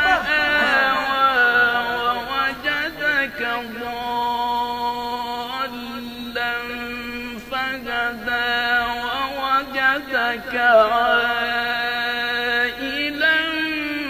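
A man reciting the Quran in a melodic tajweed style, one voice holding long drawn-out notes joined by quick ornamented turns.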